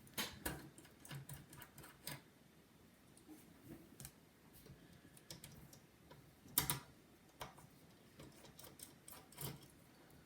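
Faint, scattered clicks and small taps of a precision screwdriver working the tiny heatsink screws in a MacBook, the sharpest click about two-thirds of the way through.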